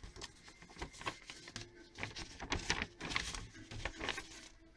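A sheet of drawing paper rustling and crackling as it is unfolded and handled, in a run of short, irregular crinkles that are loudest in the second half.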